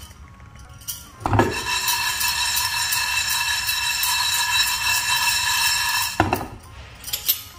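Gas stove burner running with a steady hiss and a whistling tone under a pan of dry-roasting spices. A knock about a second in starts it, and another knock near the end cuts it off.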